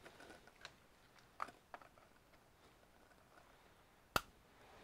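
Faint handling noise with a few small clicks and one sharper click about four seconds in: a hand working the buttons of a small bench power supply to set a 1 V injection voltage.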